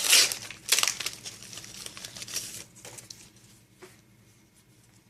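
Foil booster pack wrapper crinkling as it is torn open, with loud rustles near the start and just before a second in, then softer rustling of the cards that fades out.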